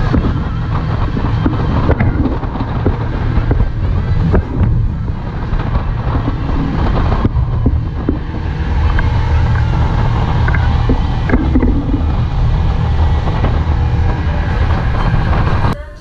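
Power catamaran running at speed across open water: a steady, loud engine drone with the rush of water and wind on the microphone, and a few short knocks.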